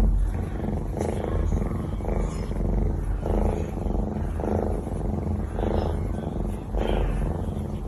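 Domestic cat purring loudly close to the microphone, a deep steady rumble that swells and eases about once a second with each breath.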